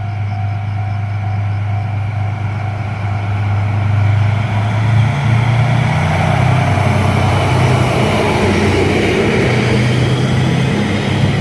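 DF200 diesel-electric locomotive hauling a freight train past a level crossing: a steady diesel engine drone, joined about four seconds in by a rising rush of wheel and rail noise as the train passes. A level crossing bell rings at the start and fades out.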